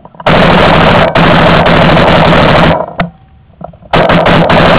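Paintball marker firing rapid, close-range volleys of shots, very loud. One burst lasts a couple of seconds, a short pause follows about three seconds in, then a second burst starts.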